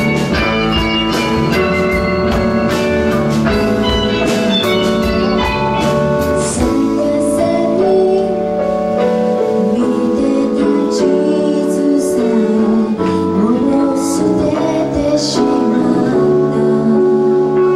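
Live band playing a pop song: electric guitars, bass and drums, with a woman's singing voice coming in about six seconds in.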